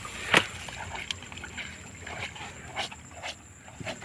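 Short splashes in shallow water: one sharp, loud splash about a third of a second in, then a few lighter ones spaced about half a second to a second apart.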